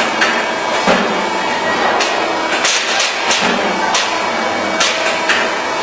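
Automatic sandpaper disc-cutting machine running: a steady machine hum with repeated sharp knocks at irregular intervals, roughly one or two a second, as it cuts discs from the sandpaper roll.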